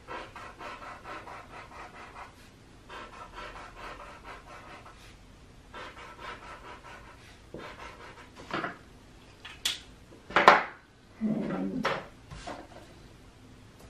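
Felt-tip marker scribbling rapidly on paper, a quick scratchy rhythm of short strokes in three bursts while an area is coloured in. Over the last few seconds come several louder clicks and knocks as markers are handled on the tabletop.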